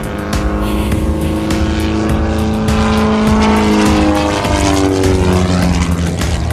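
Propeller engine of an aerobatic airplane, its pitch climbing and then dropping about five seconds in as it passes.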